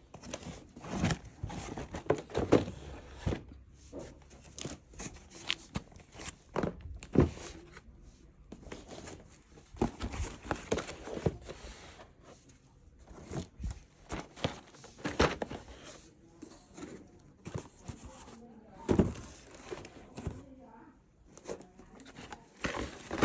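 Toy packaging being handled and opened: plastic and cardboard crinkling and tearing, with irregular knocks and rustles.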